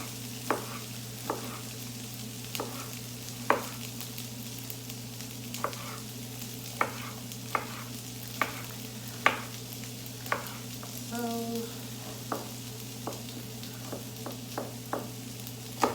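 Vegetables frying in a pan with a faint sizzle, while a utensil stirs them and knocks against the pan at irregular intervals, about once a second. A steady low hum runs underneath.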